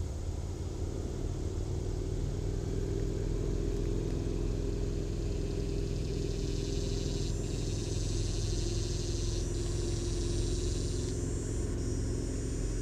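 A boat's motor running steadily: a constant low rumble with a steady hum over it.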